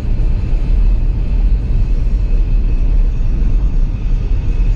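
Steady low rumble of a car driving on the road, heard from inside the cabin: road and engine noise.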